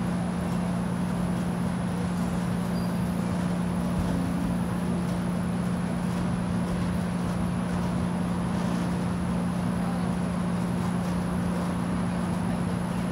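A steady low mechanical hum that holds one pitch throughout, over a constant hiss.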